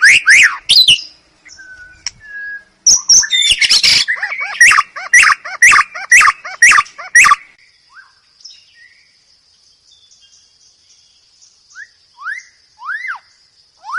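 White-rumped shama (murai batu) singing a loud, varied song of rich whistles and chattering phrases. The song ends about seven seconds in with a quick run of repeated falling notes. After a pause with a faint high steady buzz, a series of falling whistled notes comes near the end.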